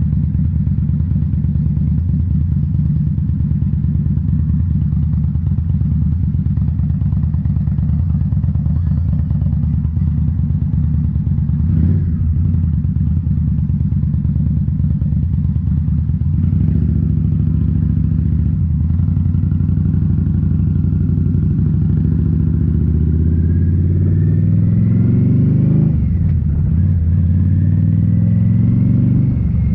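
2018 Indian Scout Bobber's V-twin engine through Rinehart slip-on mufflers, running steadily at a cruise, then pulling harder from about halfway with its pitch rising through the gears. Two upshifts come near the end, each dropping the pitch before it climbs again.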